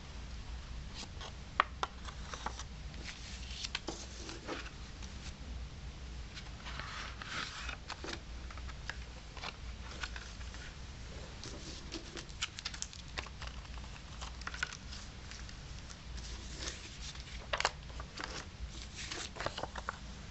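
Hands handling a cardboard mini-LP CD sleeve and its paper obi strip and inserts: light rustling, sliding and tapping of card and paper, with scattered sharp clicks, the loudest a couple of seconds in and near the end, over a steady low hum.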